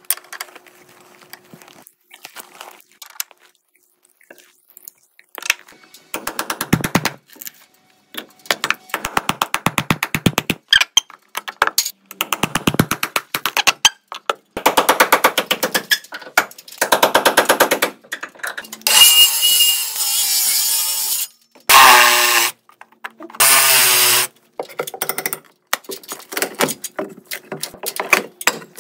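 Hand tools on old framing lumber: a hammer striking a cat's paw and flat nail puller, prying nails out of a wooden rim board in rapid runs of metal-on-wood clicks and knocks. About two-thirds through there is a louder scraping stretch with a downward-bending squeal, like a nail being drawn out of the wood.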